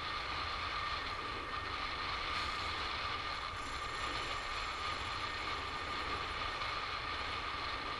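Fishing reel drag buzzing steadily as a hooked tarpon pulls line off against it, with a low rumble underneath. The sound cuts off suddenly at the end.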